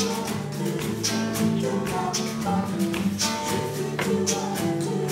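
Live acoustic folk music: strummed acoustic guitars over a sustained low drone, with sharp claps or percussion hits keeping a beat about twice a second.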